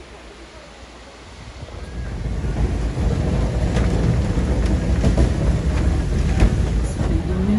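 Low rumbling travel noise from a moving vehicle, with wind on the microphone, swelling about two seconds in and then holding steady. A few faint clicks come through it.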